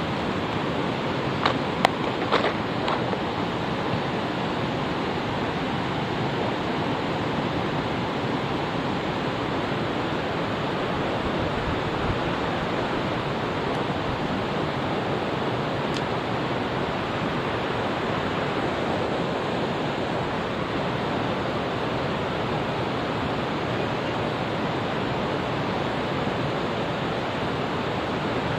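Mountain stream rushing steadily, a constant wash of flowing water. A couple of sharp clicks come about two seconds in.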